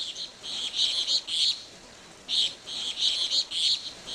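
Birds chirping in quick runs of short high-pitched notes, with a pause of about a second midway.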